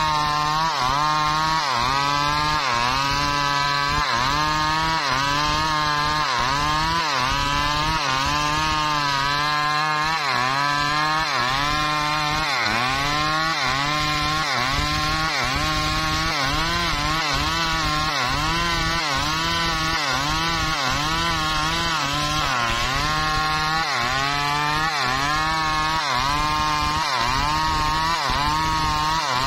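Stihl chainsaw at full throttle cutting into a large teak log. The engine pitch repeatedly sags and recovers, about once a second, as the chain bites under load.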